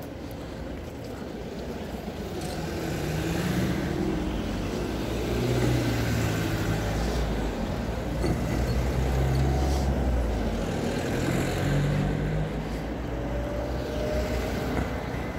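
Road traffic: cars driving past one after another, their engine and tyre noise swelling and fading as each goes by, loudest through the middle.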